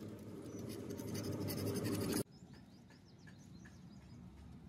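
Scraping and rubbing of a Fiat 480 tractor's differential carrier and crown wheel as they are handled and cleaned by hand inside a metal tin. About two seconds in, the sound cuts off abruptly and drops to quieter scratching with a few faint high chirps.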